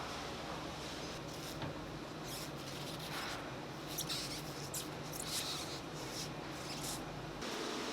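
Machinery in a button factory's sheet-production area running with a steady low hum, with irregular light scraping and clicking over it. The hum changes about seven and a half seconds in.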